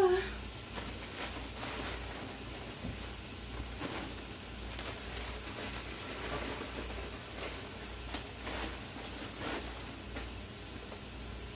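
Onions and sweet peppers sizzling as they sauté in a frying pan over a gas burner: a steady frying hiss with small crackles and pops.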